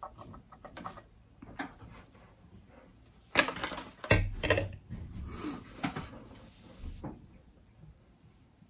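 Clicks, knocks and rustles of hands handling a fish finder and its power cable: the cable's plug pushed into the back of the unit, then a wire connector worked onto a small 12 V battery terminal. Sharper knocks come about three and a half and four seconds in, and the handling dies down near the end.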